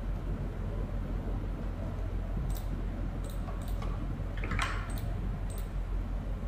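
Several sharp computer-mouse clicks spread through the second half, over a steady low electrical hum from a poor microphone.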